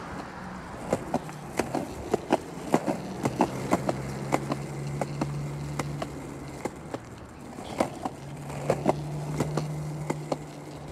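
Plastic penny board rolling on pavement, its wheels clacking irregularly over cracks and grit.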